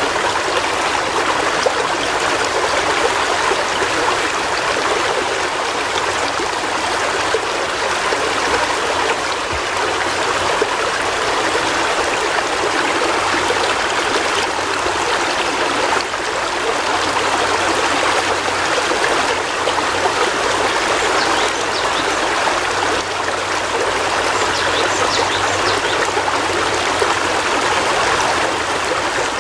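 River water flowing over rocks in a steady, even rush with trickling and splashing.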